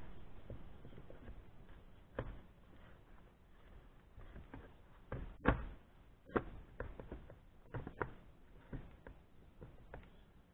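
Faint scattered clicks and knocks of metal parts as the cylinder of a Stihl 029 chainsaw is gripped and worked back and forth on its crankcase during teardown. The sharpest knock comes about halfway through.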